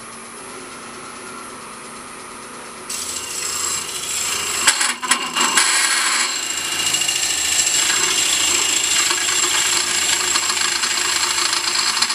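A wood lathe runs quietly, then about three seconds in a Korpro coring tool's cutter bites into the spinning bowl blank. A loud, steady cutting and scraping noise follows, stuttering briefly around five seconds, as the cutter is pushed deeper into the wood.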